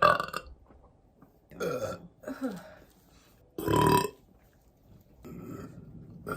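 Young women burping deliberately and loudly, several separate burps, the loudest about four seconds in, with a quieter stretch of sound near the end.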